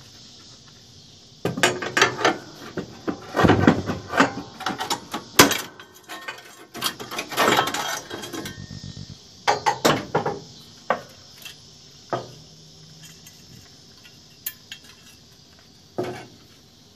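Rusted sheet-steel pieces of a car's floor pan and A-pillar bracket being handled and pulled free: irregular metallic clanks, scrapes and rattles, busiest in the first half, then a few scattered clinks.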